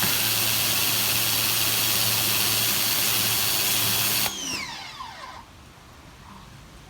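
Pressure washer spraying, a loud steady hiss over a motor hum, that cuts off about four seconds in; its motor then whines down in pitch to a stop.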